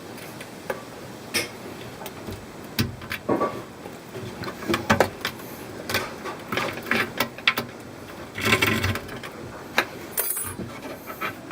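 Irregular small clicks, taps and knocks of hand work, with brief scraping or rustling bursts, the longest about two thirds of the way through.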